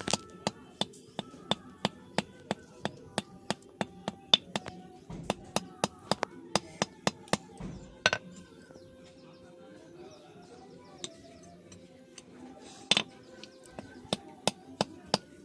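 Hand hammer striking a steel chisel blank on an anvil during forging, about three sharp ringing blows a second. The blows stop for several seconds midway, with a couple of single heavier knocks, then start again near the end.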